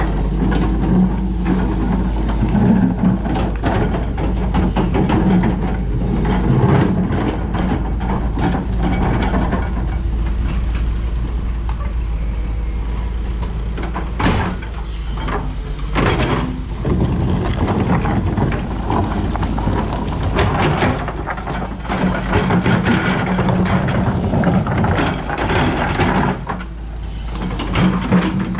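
Doosan DX225LCA excavator working: its diesel engine runs steadily under hydraulic load, with short metallic knocks and clanks from the digging and loading at irregular moments.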